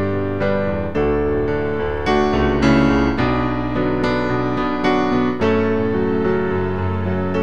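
Piano music: a run of notes over held chords.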